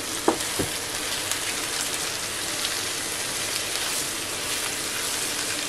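Dry orzo and diced bell peppers sizzling steadily in olive oil in a frying pan as the orzo is toasted before the liquid goes in. They are stirred with a wooden spatula, which knocks against the pan a few times in the first second.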